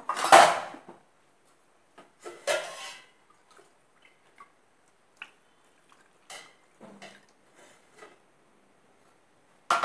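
Kitchenware clatter around an aluminium pressure cooker as water is added to the beef: a loud clatter about half a second in and another about two and a half seconds in, then quieter clinks and splashes.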